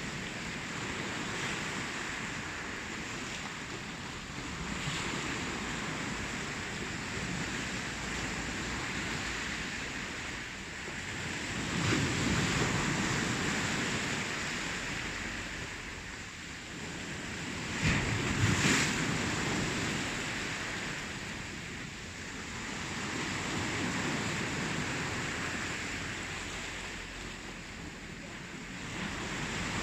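Ocean surf: waves breaking and washing in as a steady rush that swells and eases every several seconds, the loudest crash coming about two thirds of the way through.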